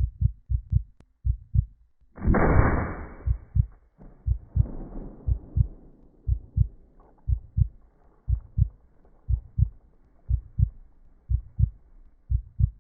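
Heartbeat sound effect: steady paired low thumps, about one lub-dub a second. A loud hissing whoosh cuts in about two seconds in and fades over a second or so, with a fainter one soon after.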